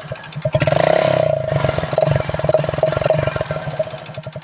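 Motorcycle engine and exhaust blipped once: a loud surge about half a second in that eases back to a steady, pulsing idle. The sound is loud and powerful.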